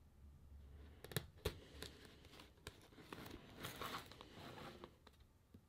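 Faint handling of a cardboard product box: two sharp taps a little over a second in, then scraping and rustling as the box is worked open.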